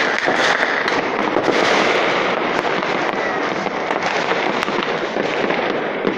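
Dense, continuous crackling of many fireworks and firecrackers going off at once, with sharp bangs scattered all through it.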